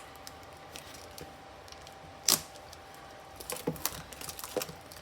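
Stiff trading-card pack packaging being worked open by hand: scattered clicks and taps, with one sharp click about two seconds in and a run of clicks near the end.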